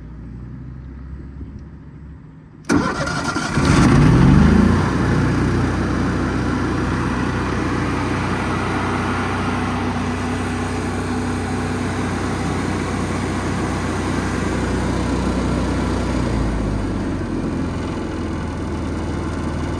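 Engine of a Lincoln 260 MPX engine-driven welder starting: it catches abruptly a few seconds in and revs up quickly, then settles into steady running.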